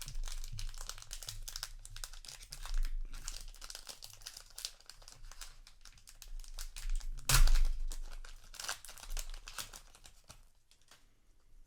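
Trading card booster pack wrapper being crinkled and torn open by hand, with one loud rip about seven seconds in; the crackling dies down near the end.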